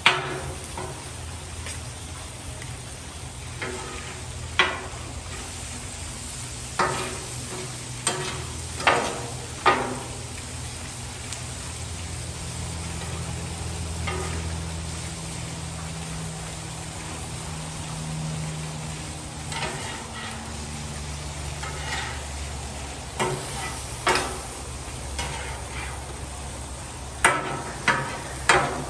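Thin-sliced ribeye and onions sizzling on a flat-top gas griddle. A metal spatula and scraper clack and scrape on the hot plate as they chop and turn the meat: a few sharp strikes early on, then a quick run of them near the end.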